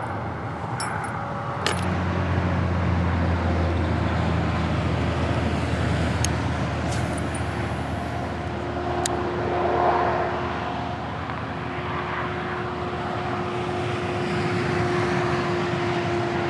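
Interstate highway traffic: a steady rush of tyre and road noise, with a heavy vehicle's low drone passing a couple of seconds in and a steady hum coming in later. A few light clicks sound over it.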